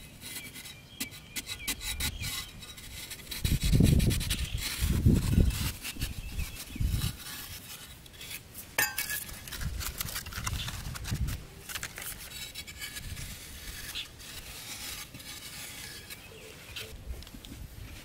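Scraping and rasping of a flat-bladed metal digging tool and then bare hands working into hard, sandy soil, with a few dull thuds as the soil is dug out.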